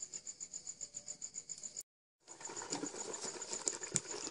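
An aluminium cooking pot handled on the stove, with a few sharp metal clicks over a steady noise that comes in after a brief dropout about two seconds in. A faint high-pitched chirp pulses about six times a second behind it.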